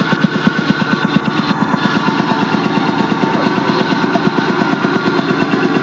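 Wayne W700 piston air compressor running steadily, its pump beating with a rapid, even pulse; quiet for a compressor of its size.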